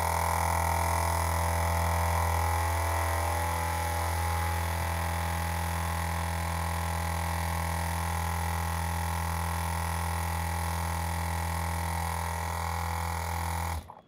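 Milwaukee M18 FUEL cordless two-stage 5 CFM vacuum pump running with a steady low drone as it evacuates a smoke-filled test tank through its hose. It stops abruptly near the end.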